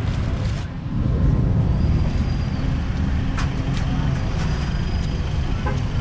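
Street traffic noise: a steady low rumble of passing vehicles, with a few faint brief high squeals and clicks over it.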